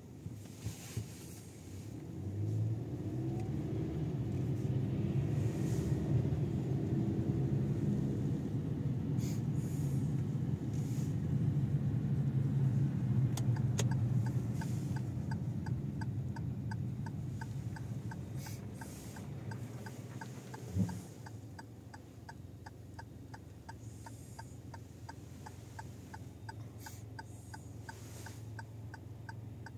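Low rumble of a car's engine and tyres heard from inside the cabin while driving, swelling early on and easing off past the middle as the car slows. From about halfway the turn-signal indicator ticks steadily, with a single thump about two-thirds of the way in.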